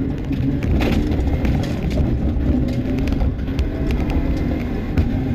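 Cabin sound of a Mitsubishi Lancer Evolution IX rally car at speed: its turbocharged 2.0-litre four-cylinder engine running under load with steady tyre and road noise, and a few light knocks from the car's interior.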